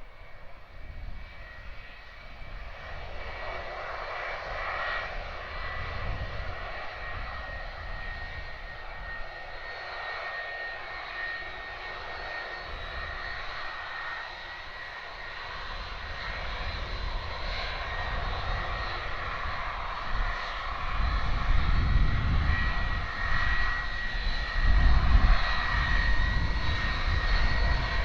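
Airliner's jet engines running, a steady high whine over a broad roar that grows louder through the second half, with a deep rumble coming in near the end.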